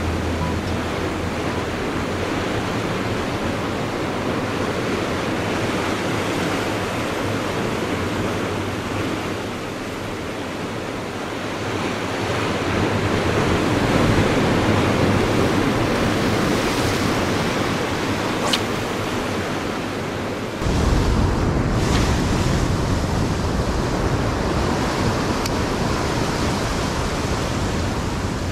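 Ocean surf washing against sea rocks, a steady rush of waves that swells and eases. About twenty seconds in, a deeper low rumble joins the wash.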